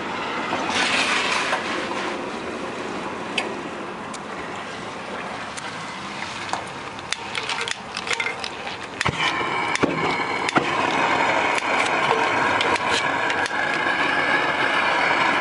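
Dean gas fryer being lit: sharp metallic clicks and taps at the gas valve and pilot, then from about nine seconds in a steady rushing noise as the burners run.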